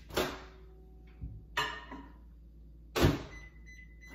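Microwave oven being loaded and shut: three sharp clunks about a second and a half apart, the last and loudest the door slamming closed, followed by a held electronic beep.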